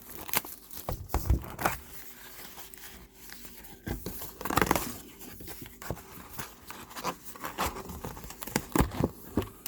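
Trading-card packaging crinkling and tearing as a hobby box and its foil packs are handled and opened, with scattered clicks and scrapes of cardboard and cards. The loudest tearing comes about four and a half seconds in.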